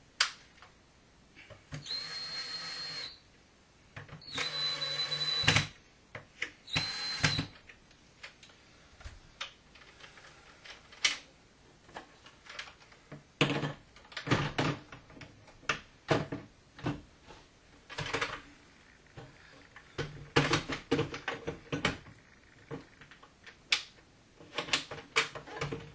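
A cordless drill-driver runs in three short bursts on the shutter's hinge screws, each with a high whine, during the shimming of the hinges. After that comes a long run of separate knocks and clicks as the wooden shutter panel is handled and swung.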